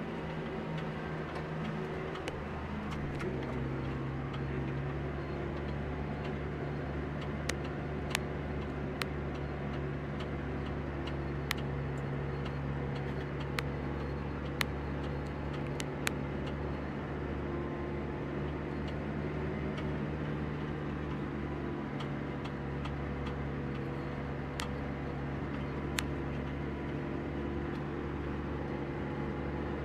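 Tractor engine running steadily as the tractor drives across a field, its pitch stepping up slightly two to three seconds in. Scattered sharp clicks sound over it, mostly in the first half.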